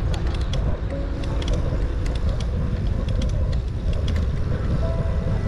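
Steady low rumble of wind on the microphone and tyre noise while riding a bicycle, with many light clicks and rattles from the bike.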